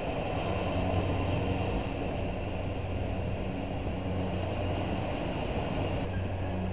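Open-top double-decker sightseeing bus driving through city streets, heard from its upper deck: a steady low engine hum with road and wind noise.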